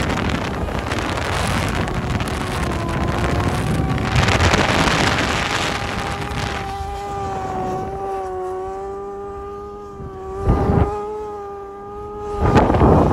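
A vehicle engine holding a steady, slightly wavering high note over wind and road noise. The wind noise is heavy in the first half, and two loud rushes of wind come near the end.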